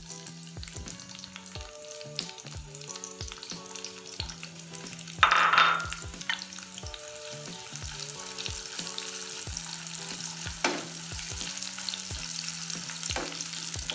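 Sliced onions sizzling as they fry in hot oil in a nonstick wok, stirred now and then with a wooden spatula. A brief louder noise comes about five seconds in.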